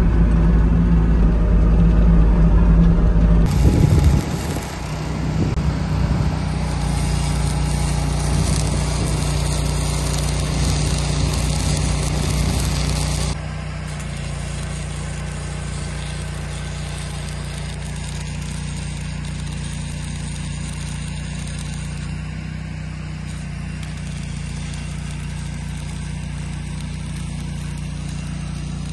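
A vehicle engine running steadily with a low hum, loudest for the first few seconds, heard from the seat of the machine. It changes character about four seconds in and drops in level a little past the middle, then carries on evenly.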